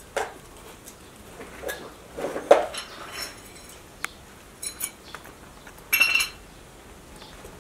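Crested porcupine eating, with irregular crunches and clicks as it chews, the loudest a little after two seconds, and a short ringing clink about six seconds in.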